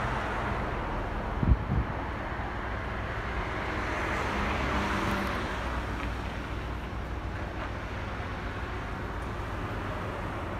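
Street traffic noise: a steady low rumble with a vehicle passing, swelling about four to five seconds in. Two short low thumps about a second and a half in.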